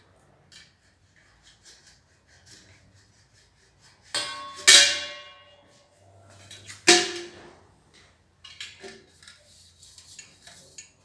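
Brass trombone parts clanking as the instrument is taken apart and laid down: light handling clicks, then three loud metallic clanks that ring on briefly, two close together about four to five seconds in and one near seven seconds.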